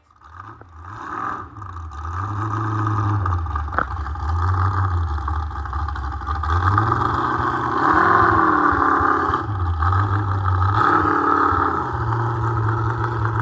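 Lifted mud truck's engine running and being revved several times, its pitch swelling up and back down about four times, the biggest rev about eight seconds in.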